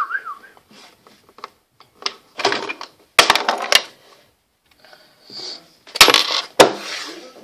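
A coin clinking and rattling between cupped hands in short bursts, then two sharp knocks about six seconds in as it comes down onto a table. A brief wavering whistle fades out at the very start.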